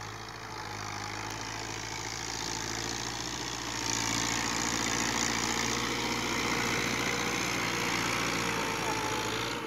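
Ghazi tractor's diesel engine working under load while it pushes soil with its front blade, a steady low hum that grows louder as the tractor draws close and jumps in level about four seconds in.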